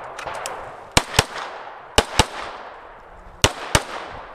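An STI Trojan 1911-style pistol fired six times in three quick pairs (double taps), the pairs about a second apart, each shot followed by a short echo.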